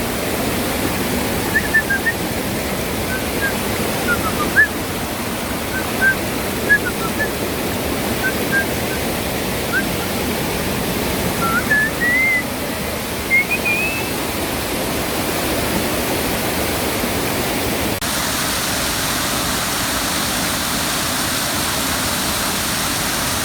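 Steady rush of falling and running water at a waterfall, with short high chirps and a few rising whistles over it in the first half. About three-quarters through, the rush turns brighter and more hissy.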